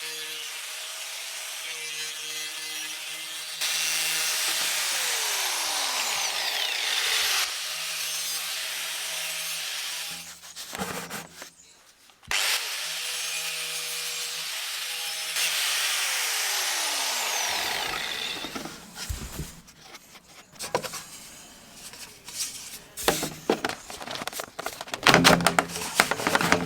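Angle grinder cutting waste pipe in two long steady runs, the disc whining down as it is switched off after each cut. Then a run of irregular knocks and clatter.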